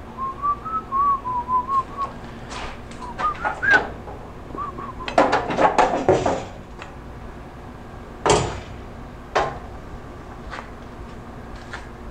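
A man whistles a short wavering tune through the first few seconds. Then come clanks and knocks of a welded steel-tube jig as it is taken down from the car's strut towers: a dense clatter about five to six seconds in, and a single loud knock about eight seconds in.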